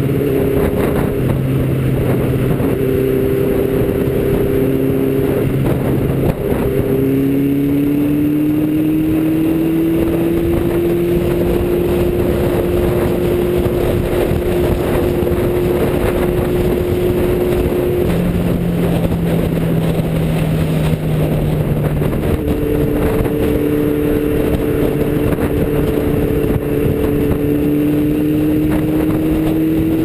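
Motorcycle engine cruising at motorway speed, droning steadily under heavy wind rush on the microphone; its pitch climbs slowly a few seconds in and shifts a couple of times later.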